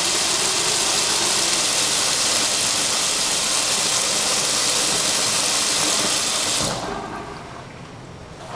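Tap water running from a two-handle bathroom faucet into the sink basin, a steady hiss that stops suddenly about two-thirds of the way through.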